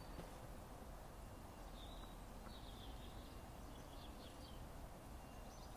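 Quiet background ambience with a low steady rumble, and a bird twittering a short run of high notes from about two to four seconds in.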